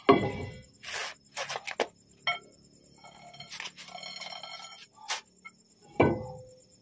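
Metal clanks and clinks, some of them ringing, as a steel truck brake drum and wheel hub are worked onto the axle and their bolt holes lined up with the studs. A louder knock comes near the end.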